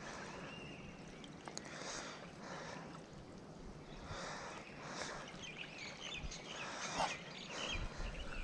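Faint outdoor ambience: a hissing wash that swells and fades about once a second, with a few small bird chirps around seven seconds in.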